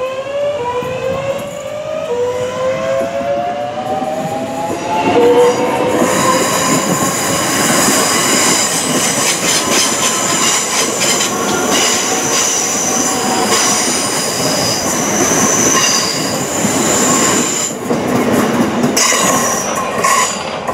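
Southeastern Class 465 Networker electric multiple unit moving off past the platform: its traction whine rises in pitch in several steps as it picks up speed. Then the carriages pass close by with a steady rush of wheel and rail noise, a high wheel squeal and clicking over the rail joints.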